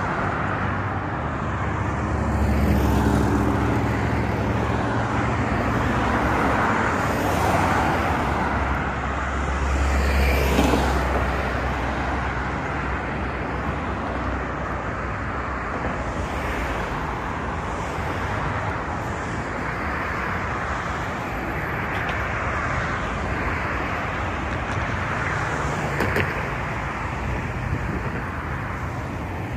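Street traffic: a steady wash of cars passing, with engine rumble swelling twice as vehicles go by, about three seconds in and again about ten seconds in.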